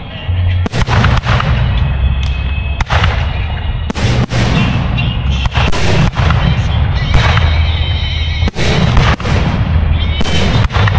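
Aerial firework shells bursting in quick, irregular succession, about a dozen sharp booms and bangs, with music playing underneath.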